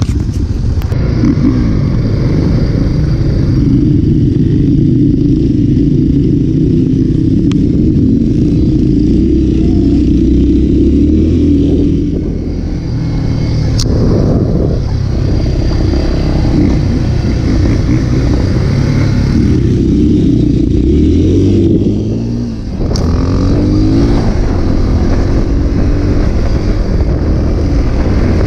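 Motorcycle engine running while being ridden, its pitch rising and falling with the throttle. The throttle eases off briefly twice, about 12 and 22 seconds in, then the engine picks up again with a rising note.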